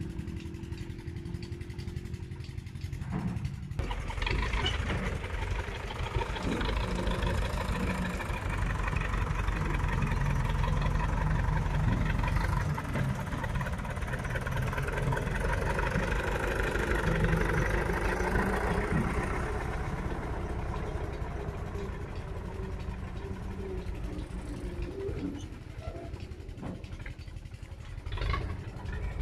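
Massey Ferguson 385 tractor's diesel engine working hard under load, pulling a trolley loaded with soil. The engine gets louder a few seconds in, is loudest through the middle stretch and eases off later.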